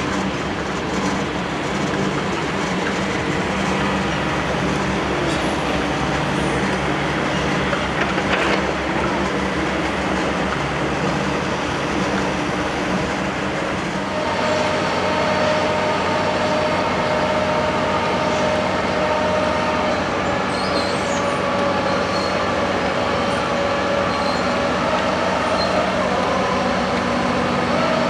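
Heavy diesel construction machinery running steadily, with a steady hum and whine. About halfway through, a higher whine sets in on top.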